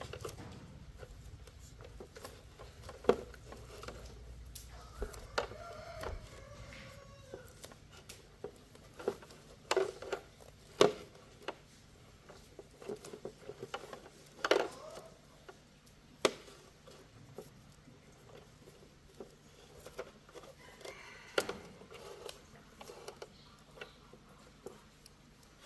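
Scattered sharp clicks and knocks of small objects being handled, a few louder ones about three, eleven and fifteen seconds in, over a low hum that stops about six seconds in.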